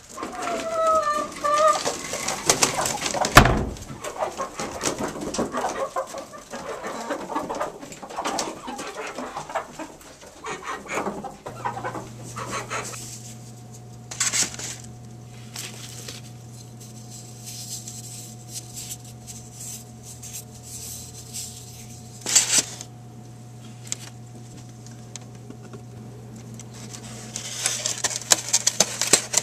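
Hens clucking in a nest box, with a sharp knock about three seconds in. Later, eggs are set into a plastic egg carton and the lid is pressed shut: small clicks and a clatter over a steady low hum.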